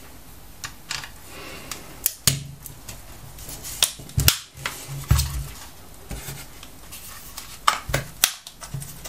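Screwdriver prying at the seam of a plastic laptop battery pack case: scattered sharp plastic clicks and snaps at irregular intervals, some with dull knocks as the pack is handled, as the case starts to come apart.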